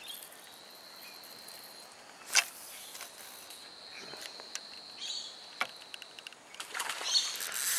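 An insect's steady high-pitched trill, which stops about six seconds in. A sharp knock comes about two and a half seconds in, with a few lighter clicks, and a rush of noise rises near the end.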